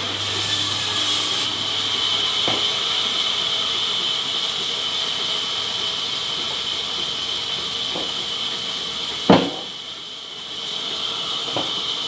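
Large sawmill band saw running and cutting through a banyan log: a steady, high-pitched noise from the blade. A few knocks sound over it, one loud and sharp about nine seconds in.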